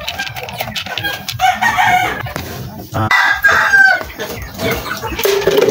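A rooster crowing, with chickens clucking, over the scrape and rattle of feed pellets being stirred by hand in a plastic scoop.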